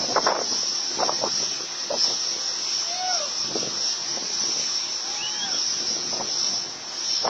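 Insects chirring steadily in one continuous high buzz, with a few short scattered calls and faint voices over it.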